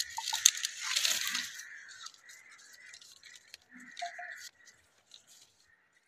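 Leaves and twigs rustling and scraping right against the microphone for about the first two seconds as the phone is pushed through the branches, then mostly quiet with a few faint small sounds.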